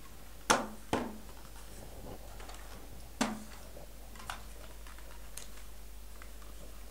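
Hard plastic clicks and knocks as the detachable stock of a Nerf Super Soaker Tornado Strike water blaster is handled and set down on a table: two sharp knocks about half a second and a second in, a louder one about three seconds in, then a few faint ticks.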